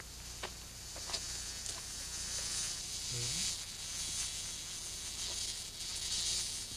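A high, hissy buzz that swells and fades several times, with one short low rising hum about three seconds in.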